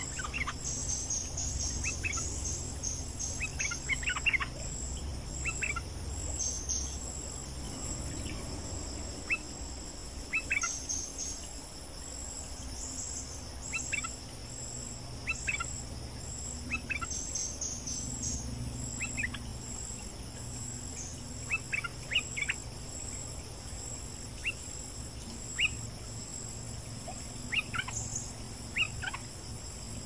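Bulbul calls: short, sharp notes that slide downward, given singly or in quick clusters every second or two. A steady high buzz of insects runs underneath.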